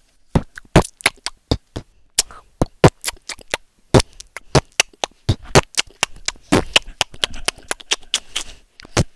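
A boy beatboxing into a headset microphone: quick, sharp mouth-made drum strokes, about four a second, stopping near the end.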